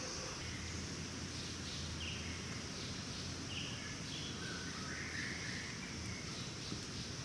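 Rainforest ambience: a steady high chirring of insects, with short bird chirps scattered through it.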